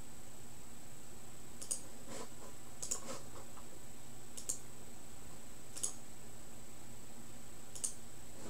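Six or so short, sharp clicks at irregular intervals over a steady low electrical hum and a thin, high, steady whine.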